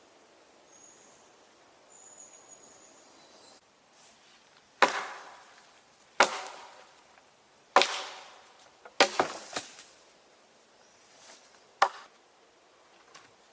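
Axe blows chopping into wood. There are single strikes at intervals of about a second and a half, then a quick run of three, then one more near the end. Each blow is a sharp crack with a short ringing tail.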